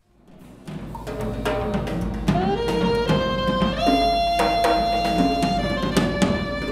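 Live band of saxophone, drum kit and double bass playing, rising from near silence within the first second into long held and sliding saxophone notes over steady drum strokes and a low bass line.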